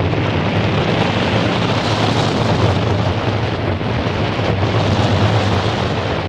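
Wind rushing over the microphone in open-air flight: a loud, steady rush that cuts off suddenly at the end.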